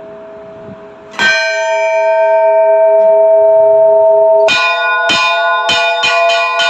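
Orthodox church bells rung before the All-Night Vigil. One bell is struck about a second in and rings on. At about four and a half seconds several bells join in a quick peal of strikes, about three a second.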